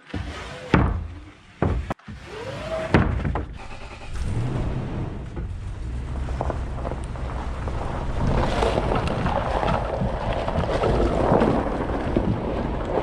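A few knocks and thunks of wooden sheathing panels going into a pickup truck bed, then from about four seconds in the steady rumble and rattle of the pickup driving, heard from its bed.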